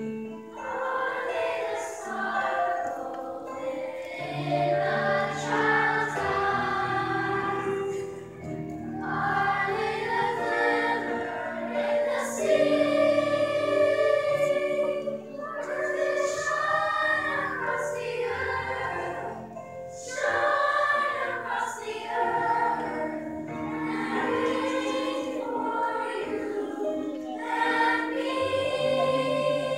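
Children's choir singing a song, in phrases of a few seconds each with brief breaks between them.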